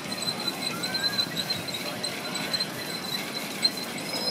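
Miniature railway train running past on its track, its wheels giving a steady high squeal that flickers rhythmically over a rumbling clatter, with a few sharp clicks.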